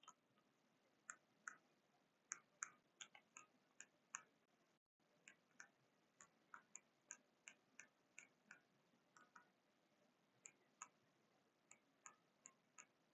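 Near silence with faint, irregular clicks of buttons being pressed to program a digital gym interval timer.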